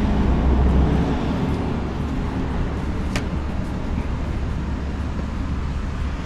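A steady low mechanical rumble, a little louder in the first second, with a single light click about three seconds in.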